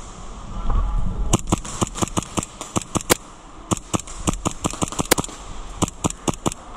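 Airsoft guns firing in a skirmish: a string of sharp, single cracking shots, irregular, about four or five a second from a second or so in.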